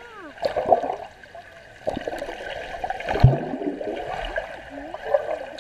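Muffled underwater sound in a swimming pool: water swishing and bubbling around swimmers, with dull knocks about two seconds in and just after three seconds, the second the loudest.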